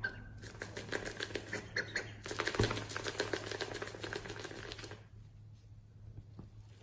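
Slime being squeezed and worked by hand: a dense run of small sticky clicks and pops, loudest in the middle with one soft thump, easing to faint crackles about five seconds in.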